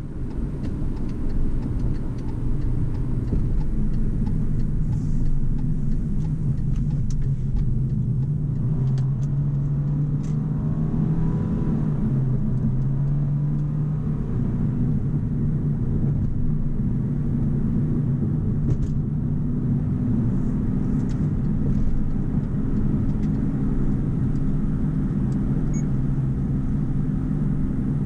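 Car driving, heard from inside the cabin: steady engine and road noise, with the engine note gliding and changing about ten seconds in.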